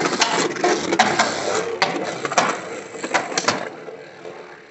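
Two Beyblade spinning tops clashing and scraping in a clear plastic stadium: rapid clattering hits for about three and a half seconds, then quieter as the tops spin apart.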